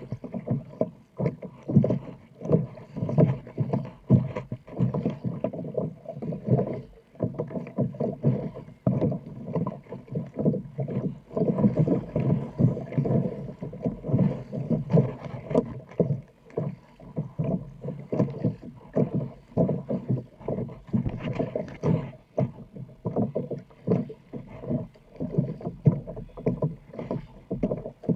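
Double-bladed paddle strokes on a sit-on-top kayak: the blades dip and pull through the water in a steady rhythm, with splashing and water slapping along the hull.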